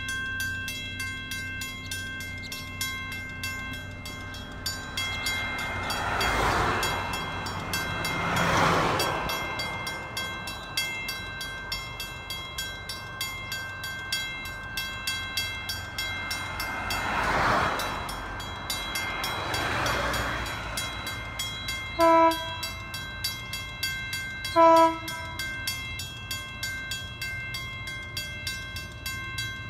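Level-crossing warning bell ringing steadily at about two strikes a second, while two road vehicles pass. Near the end, a Sydney Trains Waratah electric train approaching the crossing sounds two short horn blasts, the louder sounds here.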